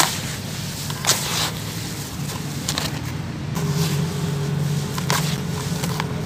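Hands crumbling crunchy sand-cement chunks, with gritty crumbs falling back onto the pile in short crackly bursts, the sharpest right at the start and another about a second in. A steady low hum runs underneath and grows louder from about three and a half seconds in.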